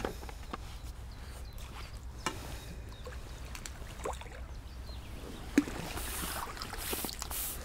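Hooked fish splashing and swirling at the water's surface as it is played on a pole and drawn to a landing net, with scattered small clicks and knocks and one sharp knock about five and a half seconds in.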